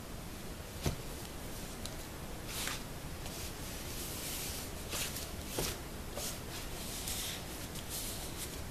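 EVA foam sheets and a foam-covered milk-carton staircase being handled and shifted on a cloth-covered surface: soft rubbing and sliding noises with a few light knocks, over a steady background hiss.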